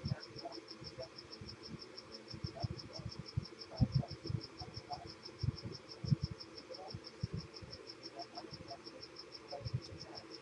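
Steady insect chirping: a high, even trill of about seven pulses a second that never stops, with scattered soft low knocks underneath.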